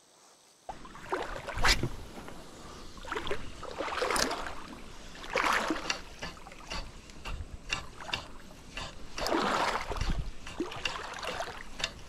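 Shallow creek water sloshing and splashing around a wading angler, in uneven bursts, with a low rumble on the microphone. It starts after a moment of silence.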